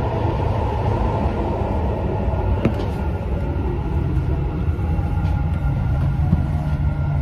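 Dubai Metro train running, heard from inside the carriage as a steady low rumble. A single sharp click comes a little over a third of the way through.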